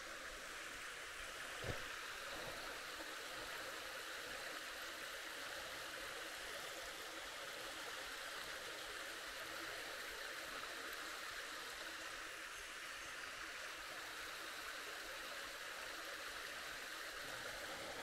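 Creek water flowing, a steady rushing sound, with a single faint knock about two seconds in.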